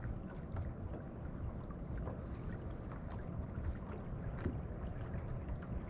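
Steady low rumble of wind and moving water around a small fishing boat, with a few faint clicks.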